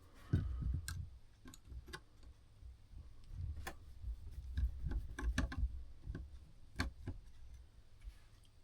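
Irregular small metallic clicks and low handling knocks from tools working on a brass Seth Thomas clock movement as the Geneva stops are taken off.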